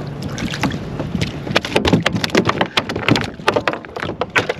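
A freshly caught fish thrashing against a kayak and the angler's gear: a quick, irregular run of sharp slaps and knocks starting about a second and a half in.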